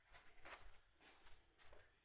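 Near silence, with a few faint, brief rustles.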